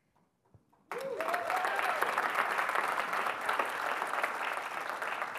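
Audience applauding, starting suddenly about a second in as dense clapping that then slowly fades. A single cheer rises and falls over the clapping at its start.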